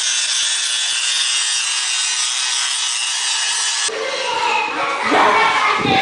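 Steady, even rasping hiss of a power tool at work, with no stroke-by-stroke rhythm. It cuts off sharply about four seconds in.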